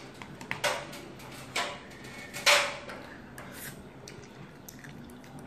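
Someone eating spicy instant noodles from a cup: three short breathy mouth noises about a second apart, the third the loudest, with light clicks of a metal fork against the cup.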